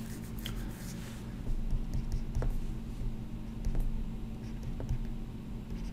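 Pen stylus writing on a tablet screen: a short scratchy stroke in the first second, then scattered light taps, over a steady low hum.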